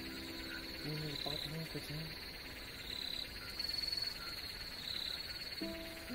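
Crickets and other night insects trilling steadily in a high, continuous chirr of repeated pulses. Short low calls come between about one and two seconds in, and held low tones start near the end.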